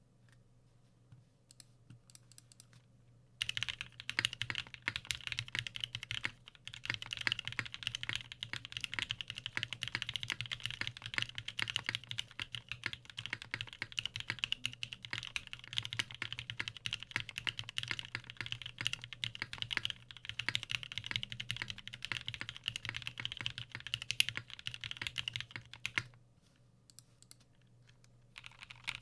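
Fast continuous typing on a custom 65% mechanical keyboard with lubed Novelkeys Cream linear switches, GMK keycaps on an FR4 plate and no case foam, giving a dense stream of key clacks. A few scattered keystrokes come first, the fast typing starts a few seconds in and thins out to occasional keys near the end, over a faint steady hum.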